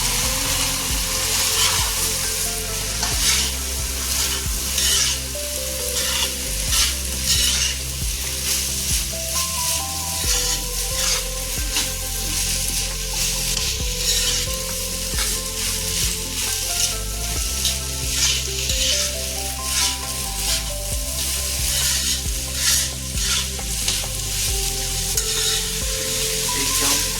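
Fried rice sizzling in a hot pan while it is stir-fried, with repeated short scrapes and knocks of the spatula against the pan.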